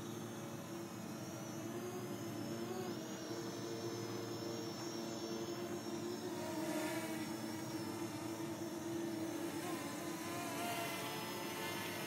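Parrot Anafi quadcopter's propellers whirring in flight: a steady whir whose pitch wavers slightly as the drone manoeuvres.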